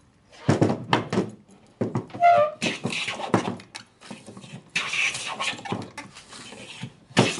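Large wooden jointer plane pushed along a board in several strokes, each a rasping hiss as the blade takes off a shaving.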